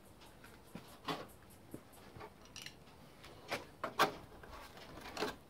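A removed sheet-steel car front guard being handled: a few scattered light knocks and scrapes, the sharpest about four seconds in.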